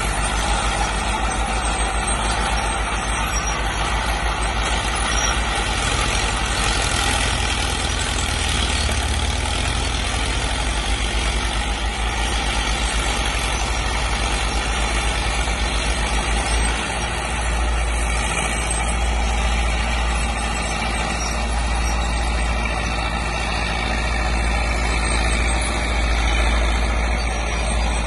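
Fiat 60C crawler tractors' engines running steadily under load while working a field in ploughing.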